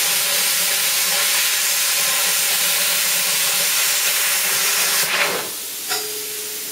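Budget 40-amp plasma cutter cutting thin stainless steel sheet: a loud, steady hiss of the arc and air jet with a faint hum underneath. After about five seconds the arc cuts off, a click follows, and a quieter hiss carries on.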